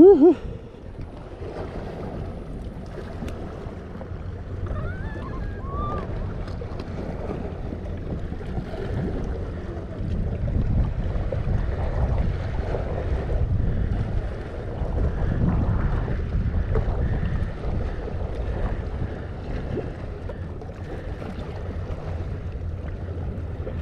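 Wind buffeting the microphone, a steady low rumble that swells and eases, over waves washing against a sandstone rock platform. A brief loud sound comes right at the start.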